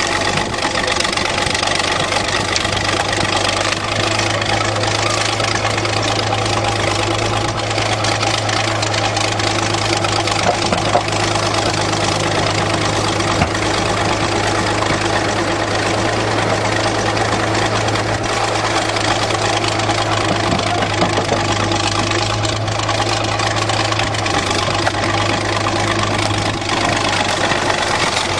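An engine idling steadily at an even speed, with a low, constant hum and no revving.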